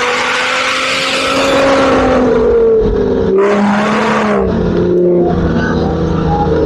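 Off-road SUV's engine running hard at high revs while drifting on sand dunes, its pitch rising and falling slowly, with two bursts of hiss from the tyres spinning in the sand.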